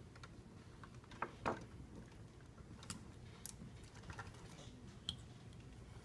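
Quiet, scattered clicks and taps of a screwdriver and wires against a steel electrical box, the loudest pair about a second and a half in.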